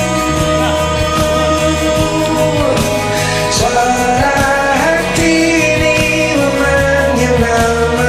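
Pop-rock karaoke backing track with a voice singing long, held notes that glide between pitches.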